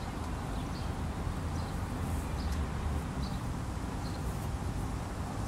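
Outdoor background: a steady low rumble with faint, short high chirps repeating about every 0.7 seconds.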